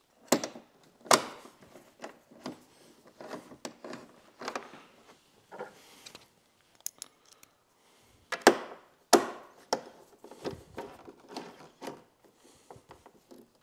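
Hinge screws being driven by hand into a motorcycle trunk lid with a red-handled driver: irregular clicks and light knocks of the tool and screws against plastic and metal, with the sharpest knocks about eight and a half and nine seconds in.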